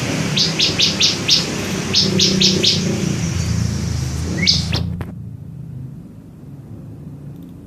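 Ciblek (bar-winged prinia) calling in quick runs of short, high chirps, about five in a row, then four, then one more, over low tones. About five seconds in the sound drops to a faint low hum.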